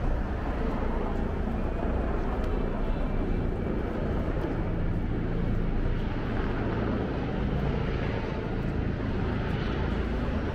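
Steady low rumble of engine noise in a city street soundscape.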